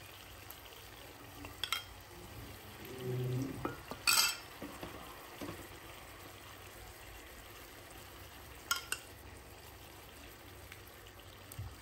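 A metal spoon clinks against an aluminium pot three times, the loudest about four seconds in, as tamarind water is ladled in. Under it is a faint sizzle from the pot.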